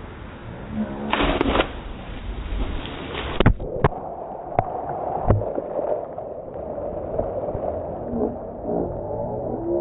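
Waterfall water rushing and gurgling, with a few sharp knocks about halfway through and brief voices near the start and near the end.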